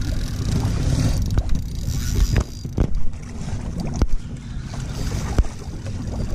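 Low rumbling wind noise on the microphone aboard a small boat on open water, broken by a few sharp knocks.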